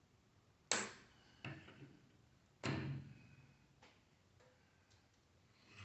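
Three sharp metallic knocks and clanks, spread over a few seconds, as the microwave oven's transformer is worked loose and pulled out of its sheet-metal chassis.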